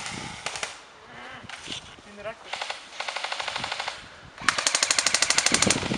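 Airsoft guns firing full-auto bursts of rapid, evenly spaced shots: a short burst at the start, a longer one about two and a half seconds in, and a louder, faster burst near the end at about fourteen shots a second.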